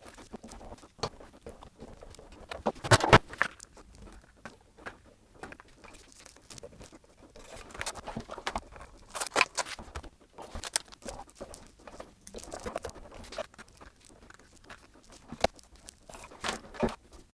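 Irregular rustling, crunching and clicking, with a few louder knocks about three seconds in, around nine seconds and near the end.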